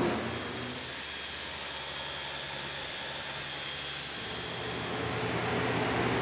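A steady hiss, strongest in the high range. A low hum fades out shortly after the start and comes back near the end.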